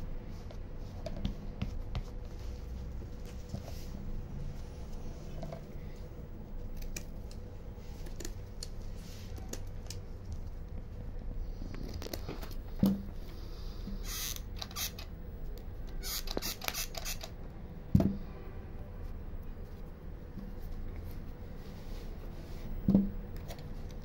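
Hand-crafting noises at a work surface: light scratching and rustling of burlap and cardboard being handled, with brief crinkly hisses, and three sharp knocks about five seconds apart that are the loudest sounds.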